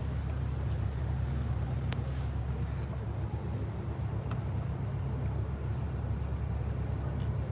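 Steady low drone of a river tour boat's engine, with wind buffeting the microphone on the open deck.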